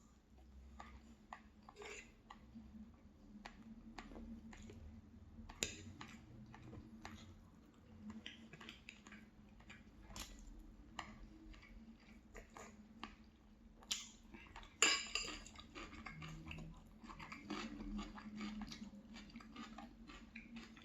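A person chewing food close to the microphone, with small clicks and clinks of cutlery against a dish throughout, and a louder clatter about fifteen seconds in.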